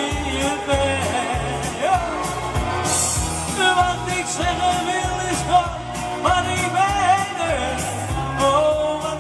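A live Dutch pop song with a steady beat and bass, a melodic lead line carrying the tune and no sung words.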